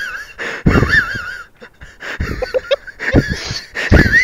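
A person laughing with a high-pitched wheeze: several breathy bursts carrying a squeaky whistle that wavers up and down.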